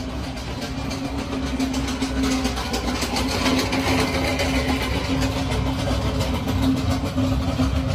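A steady mechanical hum: one constant low tone over a continuous rushing noise, like a motor running, with the noise swelling a little near the middle.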